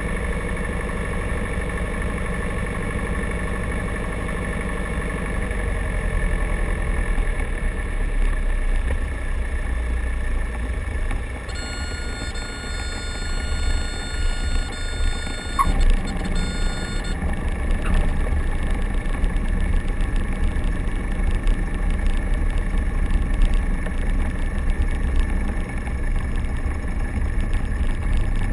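Grumman Tiger's four-cylinder Lycoming engine and propeller heard from inside the cockpit, throttled back for landing, its pitch dropping a few seconds in. About halfway through, a steady high warning tone, the stall warning horn in the flare, sounds for about five seconds, with a short chirp near its end as the wheels touch down; the engine then runs on at idle during the rollout.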